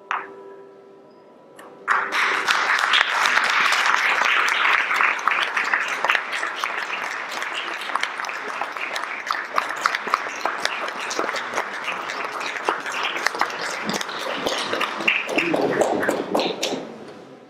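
A faint held tone fades out in the first two seconds. Then an audience applauds, a dense steady clapping that dies away near the end.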